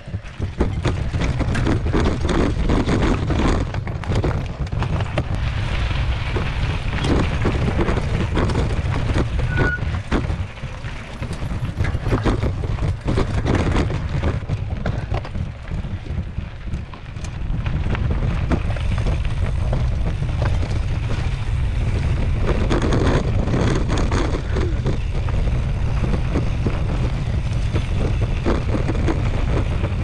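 Mountain bike riding a rough dirt and rock trail: wind buffeting the action camera's microphone as a steady low rumble, with frequent sharp clicks and knocks as the bike rattles over rocks and bumps.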